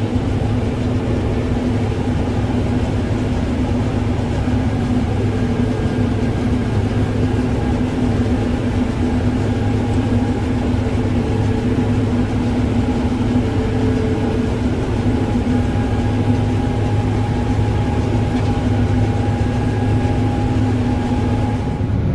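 Combine harvester running steadily under load while cutting winter barley: a constant engine and threshing drone with a few steady tones.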